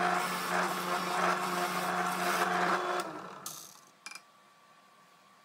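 Benchtop drill press running with a Forstner bit boring a hole through a wooden board, then switched off about three seconds in and winding down. Two brief clicks follow.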